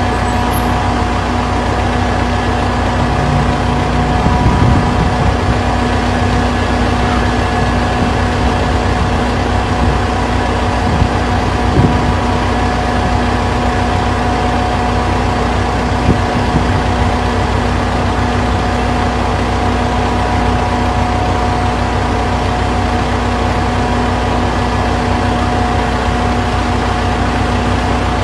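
A vehicle engine idling, a steady, unchanging hum.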